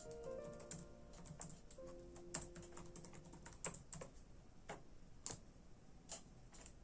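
Typing on a computer keyboard: irregular keystrokes, some louder than others, with soft piano music faintly underneath.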